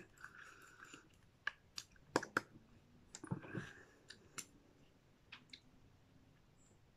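Faint, irregular small clicks and soft handling noises from a lip gloss tube and its applicator wand as gloss is put on the lips.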